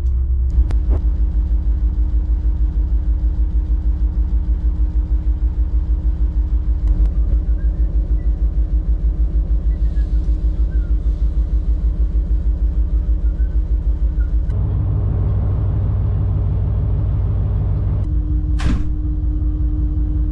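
Inland cargo ship's diesel engine running with a steady low rumble and a regular beat of about five pulses a second. About two-thirds of the way through, the sound becomes deeper and fuller, and a brief sharp hiss comes near the end.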